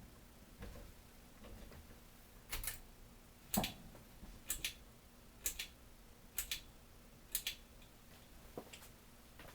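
Sharp double clicks repeating about once a second over a faint steady hum, from a running 1998 Hampton Bay Carousel ceiling fan.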